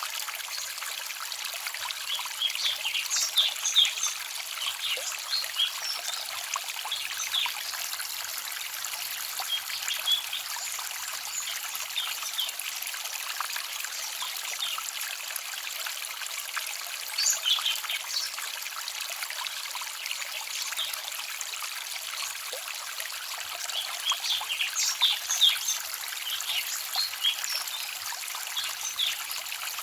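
Small forest stream trickling and babbling steadily, with livelier clusters of bright, quick splashing a few seconds in, around the middle and near the end.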